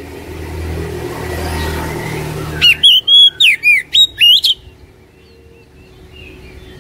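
Oriental magpie-robin singing a quick run of loud whistled notes, each sweeping up or down in pitch, about three seconds in, over a low rumble that fades as the song starts.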